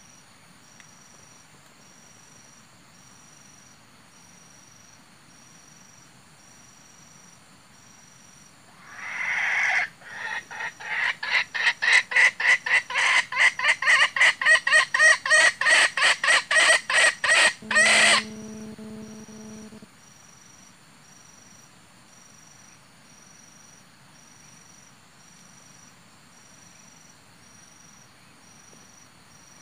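Wild junglefowl clucking call sounded as a hunting lure: a rapid run of loud clucks, about three a second, lasting some eight seconds from about nine seconds in, followed by a brief low hum.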